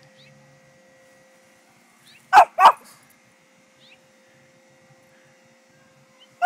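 Small dog barking: two quick short barks a little over two seconds in, and one more at the very end.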